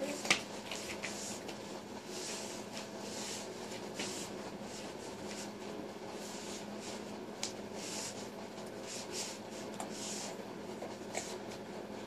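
Soft scratching and rustling of a baby crawling on a floor mat and being handled, with a sharp knock just after the start, over a faint steady hum.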